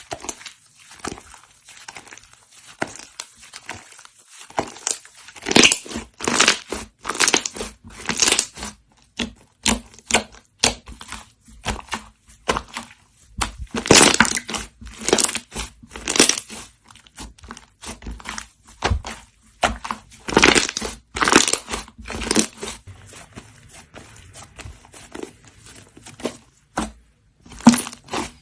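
Slime being squished, pressed and stretched by hand: a run of irregular sticky squelches, pops and crackles, with the loudest clusters a quarter, a half and three quarters of the way through.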